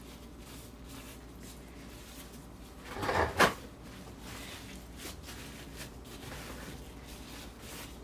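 Faint room tone broken about three seconds in by a brief scuffing sound that ends in one sharp knock, like a drawer or cupboard being shut or a utensil set down.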